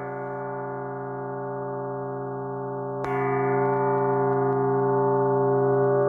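Orchestral plate bell, a hanging metal plate struck with a padded mallet, ringing on in many steady overlapping tones. It is struck again about three seconds in, and the ringing grows louder.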